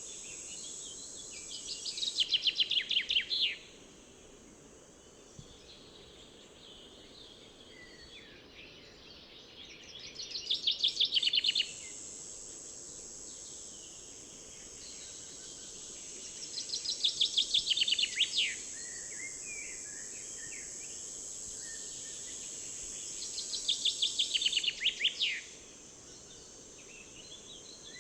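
A songbird singing the same short, fast trill four times, about every seven seconds, each phrase building in loudness over a second or so. Under it runs a steady high insect drone that cuts out for a while, and the low, even rush of the river.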